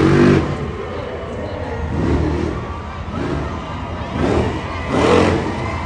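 Off-road race truck engine revving in several short bursts, each rising and falling in pitch, over a steady low background din.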